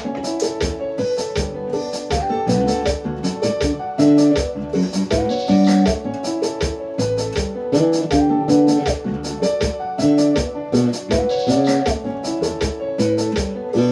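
Band music with a steady beat, keyboard chords and a prominent, deep bass guitar line.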